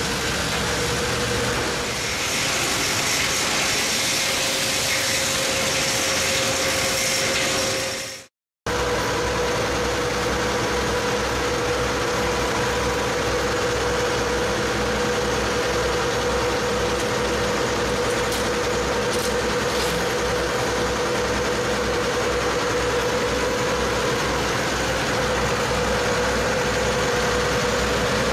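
Steady mechanical drone of recycled-plastic-lumber machinery running, with a steady hum tone through it. It cuts out for a moment about eight seconds in.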